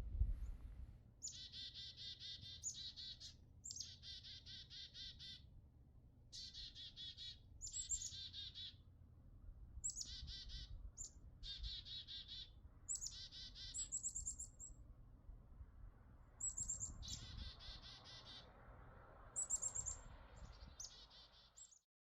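A bird singing, a series of short, rapid trilled phrases repeated every second or so, some ending in a higher chirp.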